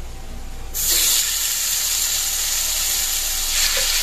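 Pieces of marinated boneless chicken sizzling in hot oil in a nonstick frying pan, a steady hiss that starts suddenly under a second in as the chicken hits the oil.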